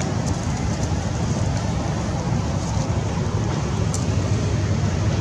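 Steady low rumbling noise with an uneven level, with a few faint clicks, one about four seconds in.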